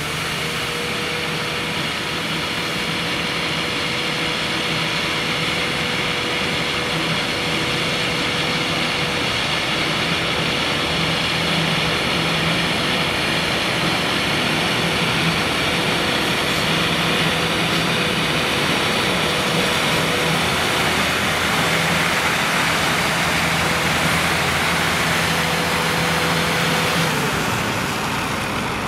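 Rosenbauer Panther 8x8 airport crash tender running its twin Volvo inline-six engines steadily while pumping, under the hiss of its water jets from the boom and front nozzle. A steady hum rides over the rushing spray and cuts off about two seconds before the end.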